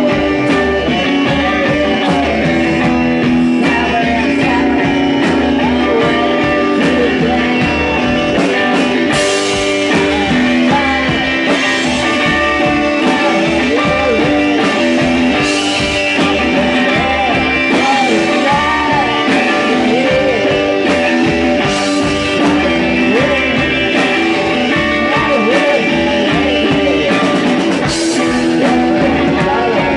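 Rock band playing live: electric guitar, bass and drums, with a cymbal crash about every six seconds.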